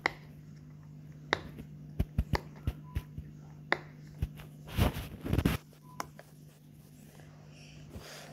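Silicone bubbles on a pop-it fidget board game being pressed in one by one: a string of short, soft pops at irregular intervals, with a louder cluster about five seconds in, over a steady low hum.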